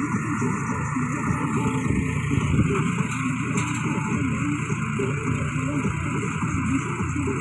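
A 42 hp John Deere tractor's diesel engine running steadily, with the baler's machinery working behind it.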